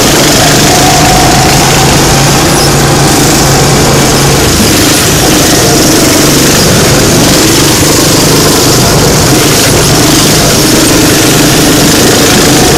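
Small gasoline engines of rental go-karts running steadily on the track, loud and close, with a hiss of wind noise over them and the engine note rising and falling a little.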